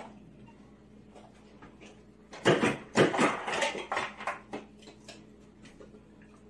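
Ice cubes clattering out of a refrigerator's door ice dispenser as a dog pushes the dispenser lever with its muzzle: a quick run of sharp clinks and knocks lasting about two seconds, starting a little over two seconds in, over the fridge's steady low hum.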